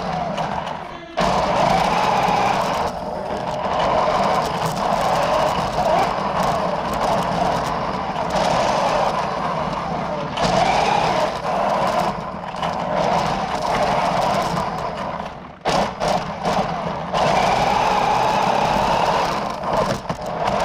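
Toy RC drift car running: its motor whines, the pitch rising and falling with the throttle, and it cuts out briefly about a second in and again near 16 s.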